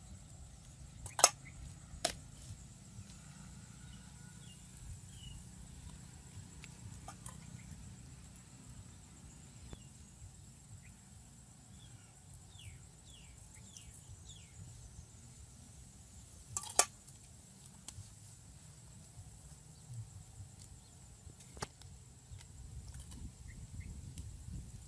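A metal spoon clinks sharply against a steel bowl four times: twice about a second apart near the start, once loudly in the second half and once more softly after it. A low wind rumble runs underneath, and a bird gives a few short chirps in the middle.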